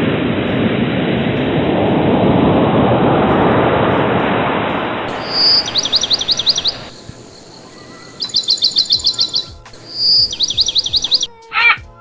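A steady rushing noise that swells and fades over the first six seconds or so. It is followed by a bird singing three phrases: a held whistle, then a fast run of falling chirps.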